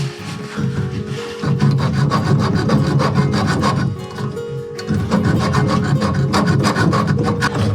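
Hacksaw cutting through a water pipe by hand, in rapid back-and-forth strokes, with a brief pause a little past the middle.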